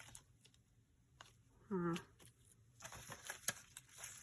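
Quiet handling of paper die-cuts and scraps, with light rustles and small clicks. About two seconds in, a short hummed "mm" from the crafter's voice.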